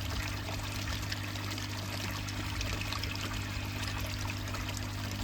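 Water pouring and trickling steadily into a koi pond from the filter return, with a steady low hum underneath.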